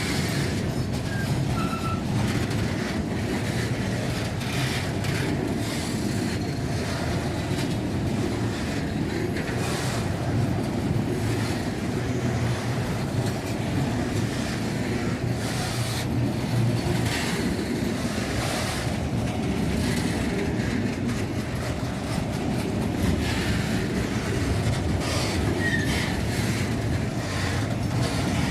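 Freight train wagons rolling past steadily, their wheels clattering over the rail joints in a continuous rumble.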